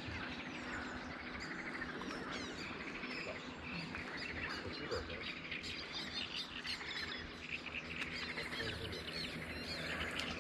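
Many small birds chirping and singing at once, a dense chorus of short, quick calls that overlap.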